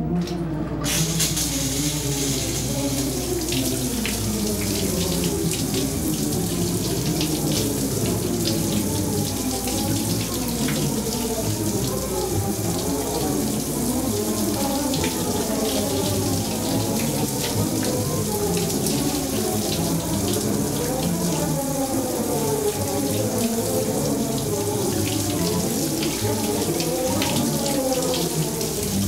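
A shower turned on about a second in, then running steadily, its spray splashing onto a person standing under it.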